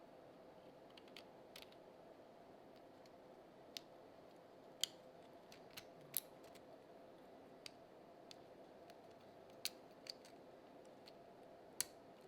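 Scattered sharp clicks and taps of plastic parts, the articulated segments of a 3D-printed print-in-place armadillo being moved, over a faint steady hum. The clicks come irregularly, a few clearly louder than the rest.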